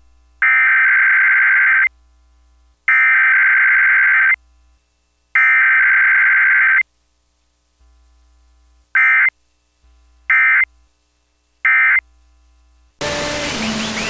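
Emergency Alert System SAME data bursts: three long, buzzy digital header bursts about a second apart, then three short end-of-message bursts. No attention tone or voice message comes between them.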